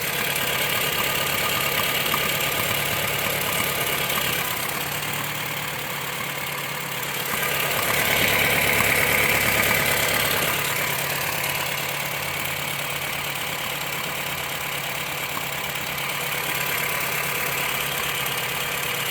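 Honda City 1.5-litre four-cylinder engine idling cold with its automatic gearbox shifted into gear, carrying the strange noise that the owner hears only when the car is cold and leaves Park, and whose cause he does not know. About eight seconds in the sound swells louder and hissier for a couple of seconds, then settles back.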